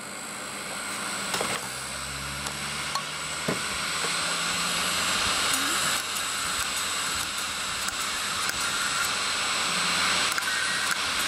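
Opened WD Green WD10EACS hard drive with no heads fitted spinning up: the spindle motor and bare platters make a whirring air rush that grows steadily louder, with a few ticks along the way.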